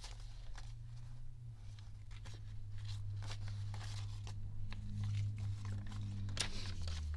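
A stack of paper US banknotes rustling and flicking as the bills are handled and sorted by hand, over a steady low hum.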